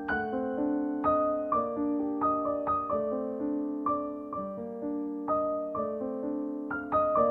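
Background piano music: a gentle melody of notes struck about twice a second, each left to ring and fade.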